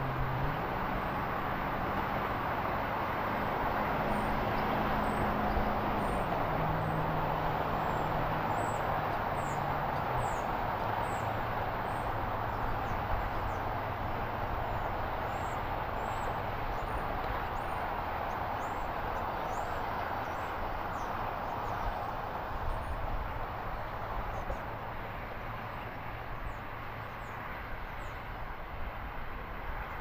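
Steady outdoor background rumble of distant traffic. During the first ten seconds a low engine drone shifts pitch in steps, then fades. Faint, high, short chirps of small birds come through repeatedly.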